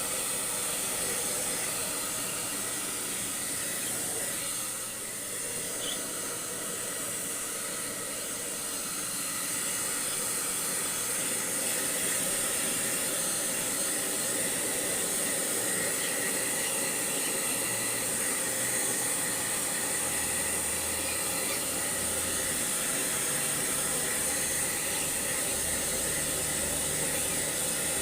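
Electric blow dryer running steadily with an airy hiss, drying a wet husky's coat after a bath; a little louder from about ten seconds in.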